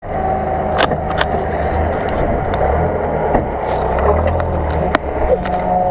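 Off-road 4x4 engine running as the vehicle drives over a rough, rutted mud track, with a steady low rumble and several sharp knocks and rattles.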